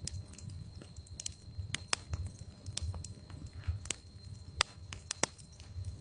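Wood fire crackling in a fireplace: irregular sharp pops and snaps over the low rumble of the flames, with a few louder pops in the second half.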